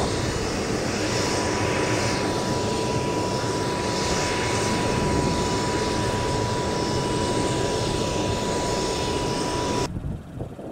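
Bombardier Challenger business jet's turbine running steadily at idle: a broad rush with a single high whine held on one pitch. It cuts off suddenly about ten seconds in, leaving quieter outdoor noise.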